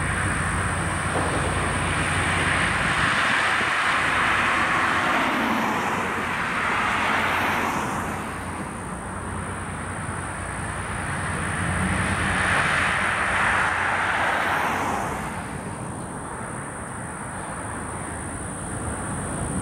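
Road vehicles passing close by, their tyre noise swelling and fading twice, over the low rumble of a slow freight train of tank cars and hoppers rolling on the adjacent track.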